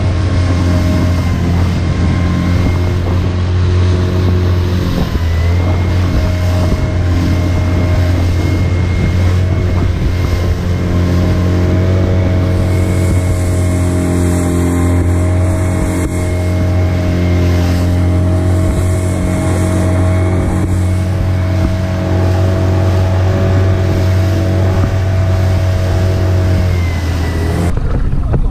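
Outboard motor running steadily at speed as an inflatable boat planes through choppy water, with spray and rushing water under it. Near the end the engine note drops as it throttles back.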